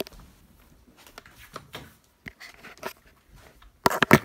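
Handling noise from a phone being moved and repositioned: scattered light knocks and rustles, then a quick cluster of loud, sharp clicks and knocks near the end.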